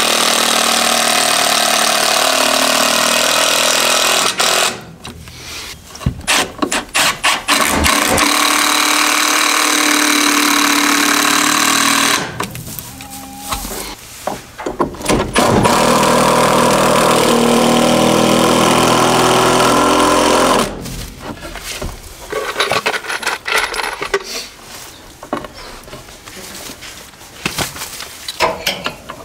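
Power tool working on 2x4 lumber, running in three loud bursts of four to five seconds each, each starting and stopping sharply, with clicks and knocks between them.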